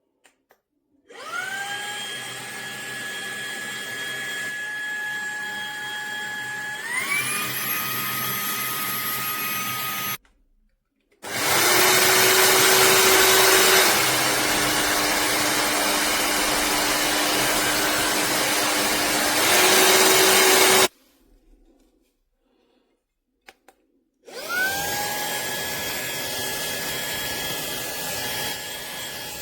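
Fanttik Slim V8 APEX cordless handheld vacuum switched on and off three times, each run starting with a rising high whine. In the first run the whine steps up in pitch partway through, a change to a higher power setting. The second run is louder, with more rushing air and a lower hum that drops in pitch and then comes back up.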